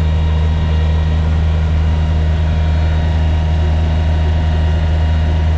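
John Deere 1445 front-mount tractor's three-cylinder diesel engine running steadily under load while it drives the snowblower attachment.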